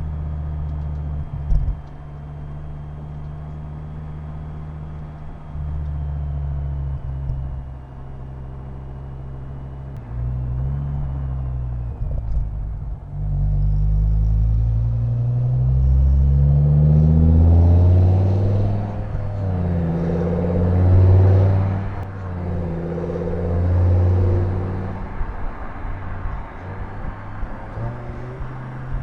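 BMW M6 E63's S85 5.0-litre V10 running steadily at low revs, then accelerating from about ten seconds in. Its note climbs and drops back several times as it pulls through the gears.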